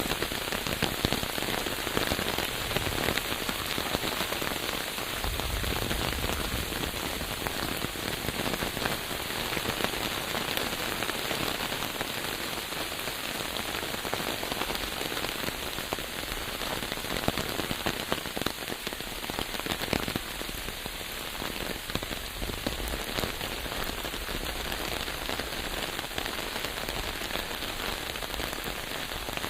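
Steady rain falling, with dense individual drops pattering on a surface.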